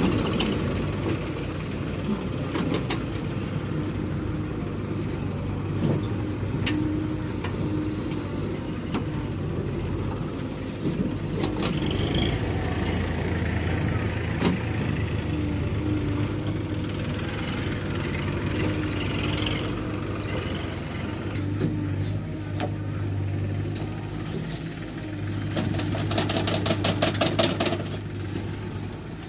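Diesel engine of heavy earth-moving machinery running steadily, with a rapid high rattling for about two seconds near the end.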